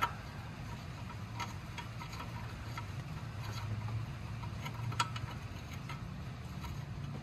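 A few light metallic clicks and taps of a bolt being worked by hand through the front stabilizer bar mount on a Honda Acty, the sharpest about five seconds in, over a steady low hum.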